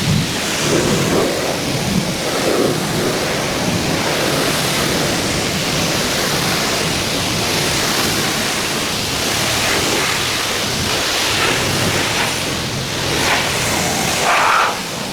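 High-pressure washer spraying water onto a car: a loud, steady hiss of spray, with a few brief swells near the end.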